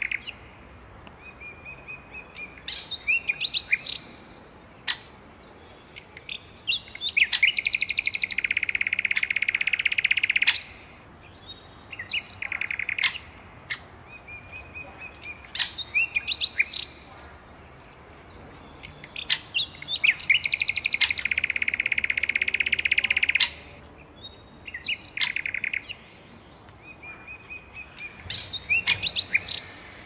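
Songbird singing: phrases of short chirps and whistles, twice running into a fast, buzzy trill of about three seconds, with scattered sharp ticks between phrases.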